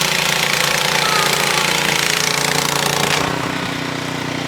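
Gas snowblower engine running steadily, with a loud rushing hiss over it that cuts off suddenly about three seconds in.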